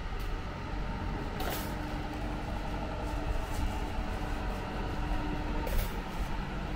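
Street traffic: a vehicle's engine running with a steady low rumble and a held tone, and two short hisses, about a second and a half in and near the end.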